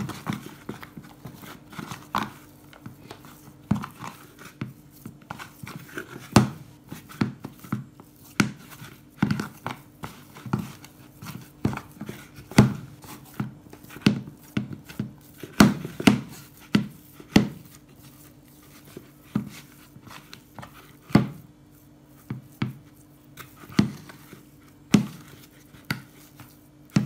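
Hands kneading a soft sweet potato dough in a plastic tub, pressing and folding it and giving irregular soft thumps about once or twice a second. A faint steady low hum runs underneath.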